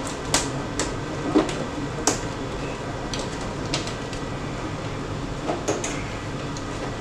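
Plastic CPU cover of a Necta Krea Touch coffee vending machine being unclipped and worked loose by hand: a series of short, sharp clicks and knocks at irregular intervals, the loudest about two seconds in.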